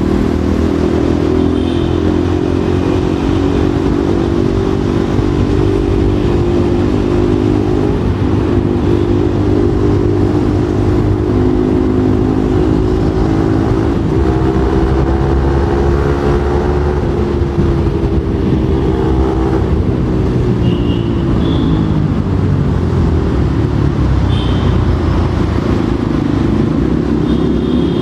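Motorcycle engine and exhaust droning steadily while riding at an even speed. The pitch rises a little midway and drops back about eighteen seconds in.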